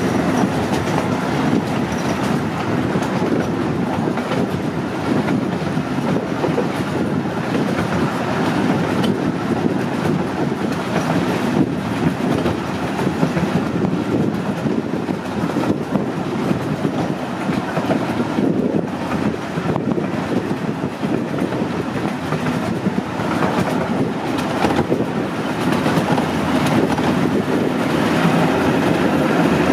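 Miniature ride-on train running steadily along its track, heard from aboard one of its open cars: a continuous noise of wheels on rails with a few faint clicks.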